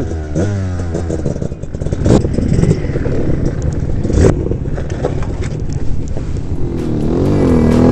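Enduro dirt bike engine revving and dropping back on a steep rocky descent, with two sharp knocks about two and four seconds in. The revving rises and falls again near the end.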